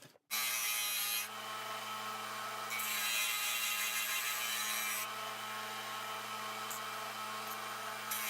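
Electric sander starting up and running with a steady motor hum while a pine piece is sanded down. The grinding hiss of wood on the abrasive swells louder at the start, again in the middle and near the end, as the piece is pressed harder against it.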